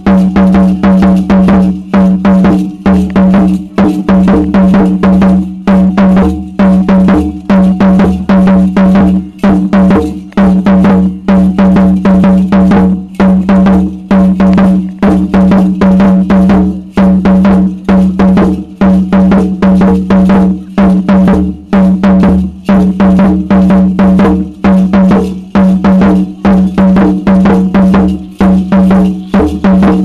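Aztec dance drum beaten loudly in a fast, steady rhythm.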